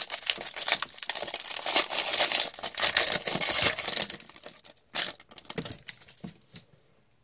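A foil trading-card pack torn open, its wrapper crinkling and crackling for about four seconds. After that come a few light rustles and clicks as the cards are drawn out, then it goes quiet.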